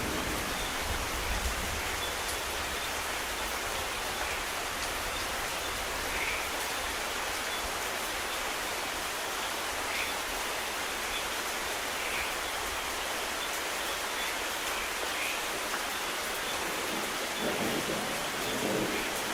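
Steady rain falling, with low rumbles of thunder about a second in and twice near the end.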